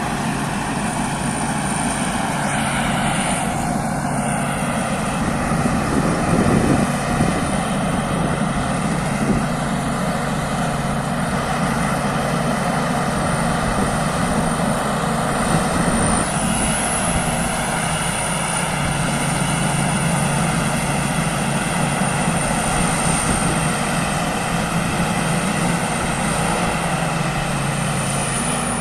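Thai Seng Yont rice combine harvester running steadily while harvesting: a continuous engine drone with a broad mechanical rush.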